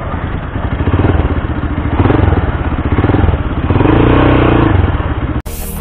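Motorcycle engine running at a standstill, its note swelling up twice as the throttle is opened and eased off, then cut off abruptly near the end.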